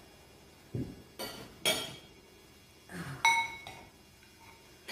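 Metal spoons and forks clinking against ceramic plates and serving dishes as food is dished out, a handful of separate clinks, one about three seconds in ringing briefly.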